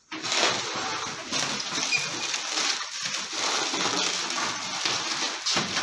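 Plastic wrapping on a chair seat crinkling and rustling steadily as it is handled.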